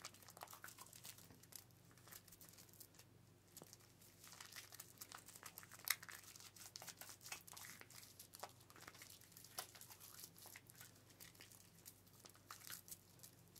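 Hands massaging shampoo lather close to the microphone: faint, irregular crackling and squishing of foam, with one sharper crackle about six seconds in.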